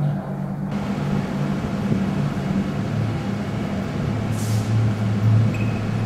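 Ventilation blower running: a steady rush of air over a low hum, the rushing growing louder about a second in, with a short hiss a little past the middle.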